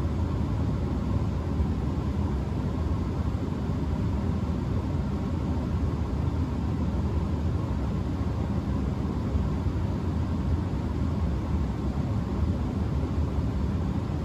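Bryant Legacy gas furnace running with its front panel off: a steady low rumble from its inducer motor, burners and blower.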